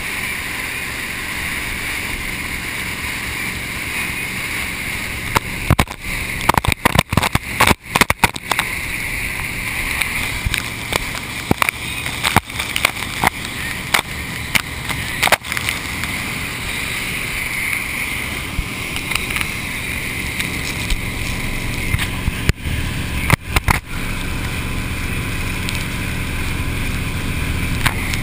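Motorboat running at speed, a steady rush of wind and churning wake water over a hull-mounted action camera. Several clusters of sharp knocks and crackles on the camera housing as hands touch it.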